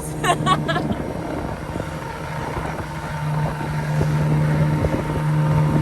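Outboard motor of a motorised fishing canoe running steadily at sea, a constant drone that swells slightly about three seconds in.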